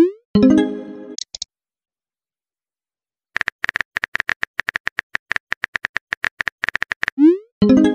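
Phone keyboard typing clicks and messaging sound effects: a rising send swoosh followed by a fading message tone at the start, then about two seconds of silence, then a quick run of key clicks for about four seconds as a message is typed, and another swoosh and message tone near the end.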